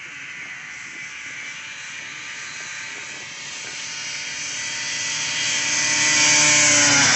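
Vintage two-stroke racing snowmobiles at full throttle down a drag strip, a high-pitched engine whine that grows steadily louder as they approach, then starts to drop in pitch near the end as they pass.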